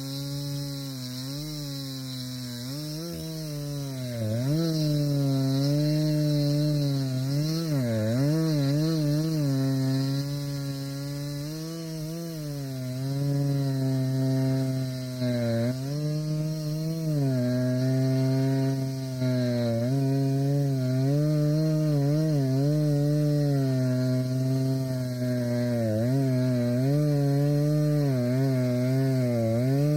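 Two-stroke chainsaw cutting through wood with a dull chain, a slow cut. The engine runs throughout, getting louder about four seconds in, and its pitch keeps sagging and recovering as the saw bogs in the cut.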